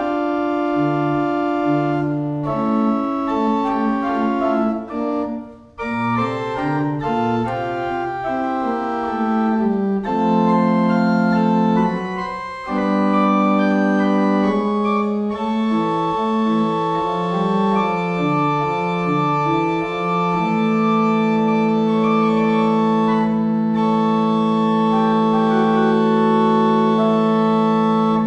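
Small pipe organ being played: chords and moving lines that change every second or so, a brief break about six seconds in, then one long held chord through the last third.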